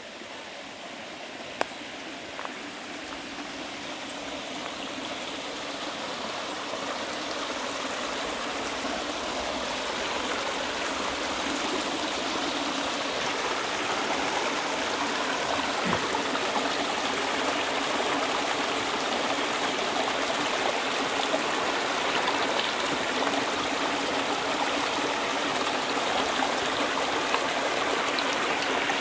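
Rushing water of a mountain creek's cascades, a steady rush that grows louder throughout, with one sharp click about a second and a half in.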